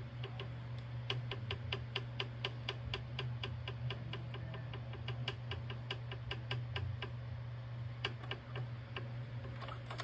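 Rapid, even mechanical ticking, about four sharp ticks a second, with a short pause and a few last ticks near the end, over a steady low hum.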